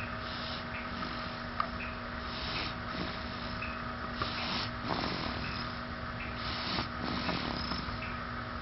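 Snoring in slow, regular breaths, about one every two seconds, some with a rough rattle, over a steady background hum.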